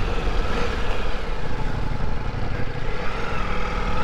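Ducati Multistrada V4S's V4 engine running steadily at low speed while the bike is ridden, heard from an onboard camera with a low rumble underneath.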